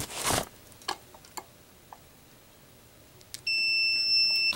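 A few handling rustles and clicks, then near the end a steady, high electronic beep lasting about a second as the FPV video receiver is switched on.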